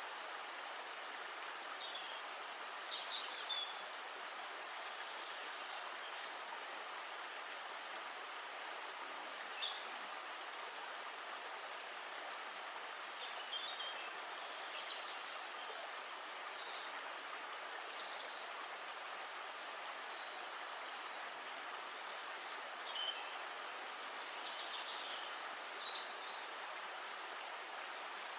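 River water flowing steadily, with short bird chirps scattered throughout.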